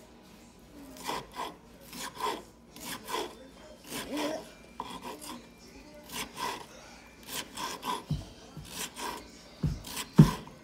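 Kitchen knife dicing red bell pepper on a wooden cutting board: short, uneven chops, often in pairs, a couple a second, with a few heavier knocks of the blade on the board near the end.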